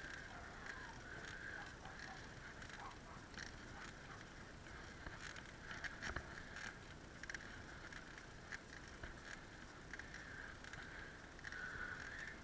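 Bicycle rolling along a tarmac lane: a faint steady hum with scattered small clicks and rattles from the bike.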